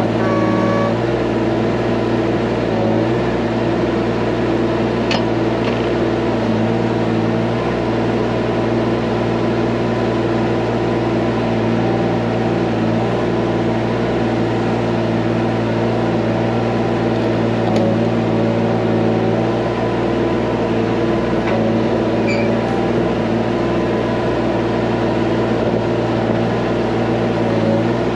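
John Deere 17G mini excavator's diesel engine running at a steady speed, with a few light clicks.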